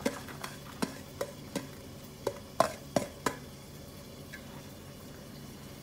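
A utensil clinking and knocking in a pan as food is stirred, about ten sharp irregular knocks over the first three and a half seconds, then only a faint steady hiss.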